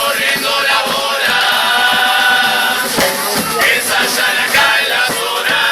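A murga chorus of many voices singing together in long held notes, with a few sharp drum hits.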